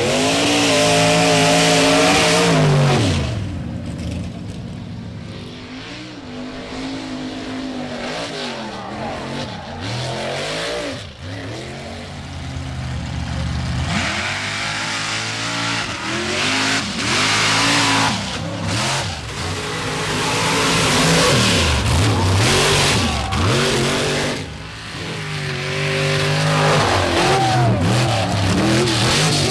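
Big-engined mud-bog trucks revving hard and dropping off again and again as they plough through deep mud, with a hiss of mud and water thrown from the tyres. The engines are loudest in the first few seconds and again past the middle.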